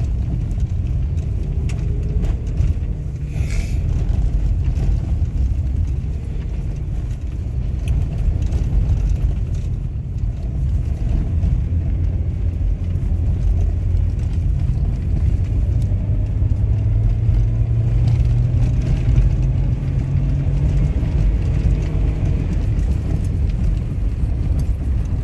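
Low, steady rumble of a car's engine and tyres heard from inside the moving car's cabin. The engine note climbs slightly for a few seconds past the middle.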